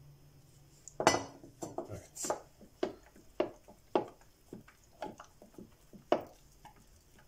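Wooden spoon stirring poppy petals and water in a glass jar, knocking against the glass about twice a second. The first knock, about a second in, is the loudest and rings briefly, and the knocks grow fainter toward the end.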